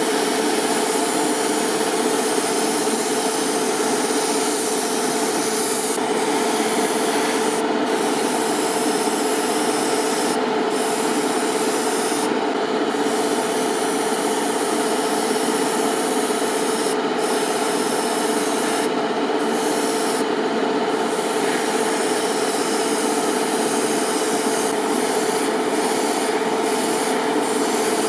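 A small electric tool running steadily, with a constant hum under an even abrasive hiss, typical of a power tool sanding or grinding.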